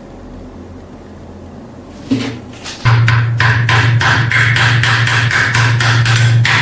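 A thump, then a machine starts: a steady low hum with sharp regular knocks, about three a second.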